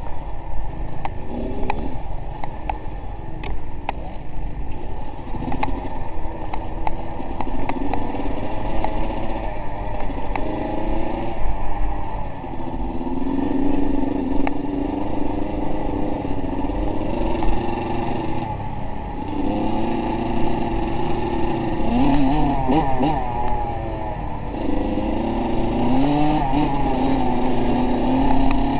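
A motor vehicle engine running and revving, its pitch rising and falling again and again, with rattling clatter over it.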